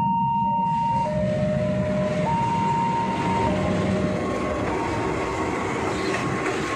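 A KAI CC206 diesel locomotive passes close by hauling its train: a steady engine rumble with wheel-and-rail noise that swells about a second in. Over it, the level-crossing warning alarm sounds two alternating tones, high then low, each held for about a second.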